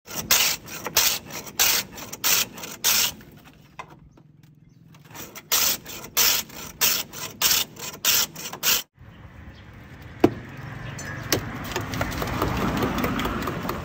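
A block of ice hand-pushed back and forth over the blade of a traditional wooden ice-shaving board: rhythmic rasping strokes about three a second, in two runs with a pause between. After a cut about nine seconds in, a steady street background with a couple of sharp clicks.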